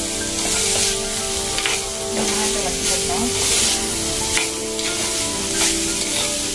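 Chopped beans, carrots and onion sizzling in oil in a clay pot, stirred and scraped with a plastic spoon in strokes about once a second.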